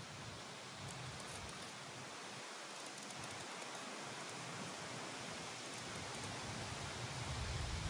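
L.T. Wright Pronghorn knife (3V steel blade) shaving a dried black cherry stick in short whittling cuts, a few faint scraping strokes over a steady background hiss. A low rumble comes up near the end.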